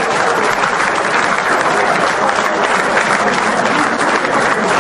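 A crowd applauding: dense, steady clapping at an even level throughout.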